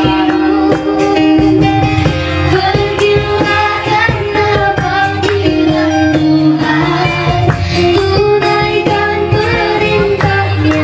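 A woman singing a sholawat (Islamic devotional song) into a microphone, with electronic keyboard accompaniment and a steady beat.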